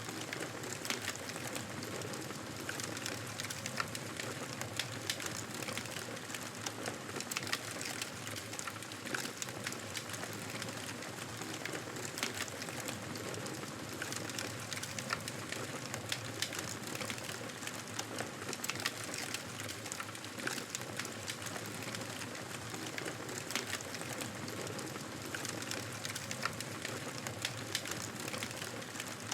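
Wood fire in a fireplace crackling, with a steady hiss and frequent small, sharp pops at irregular moments.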